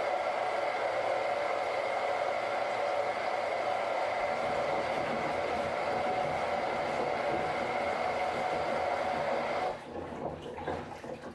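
A tap running steadily as potatoes are washed under it, shut off about ten seconds in, followed by a few small drips and knocks.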